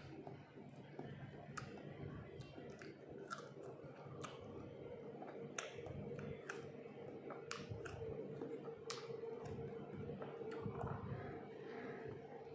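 Close-up chewing of fruit, with irregular wet mouth clicks. A steady hum comes up about halfway through.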